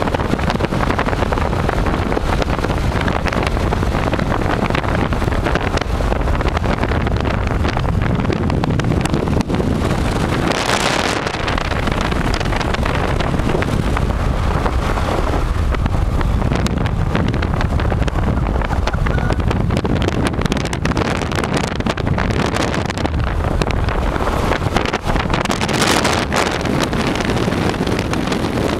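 Wind rushing and buffeting the microphone at an open car window at road speed, over the car's road noise. The rush swells briefly twice, about a third of the way in and near the end.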